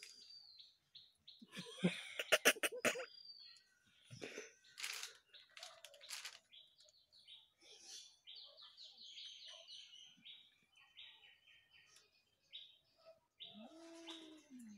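Birds chirping in short repeated notes, with a loud rapid rattling call about two seconds in. Near the end comes one low, drawn-out yowl that rises and falls, a cat's threat call in a standoff.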